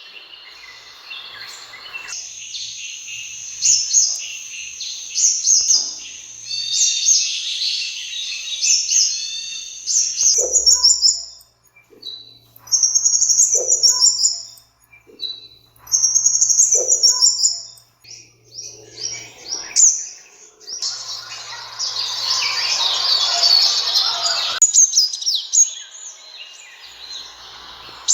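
Sunbird calling: high, rapid twittering chirps and trills in short repeated phrases, with a denser, busier stretch of song about three quarters of the way through.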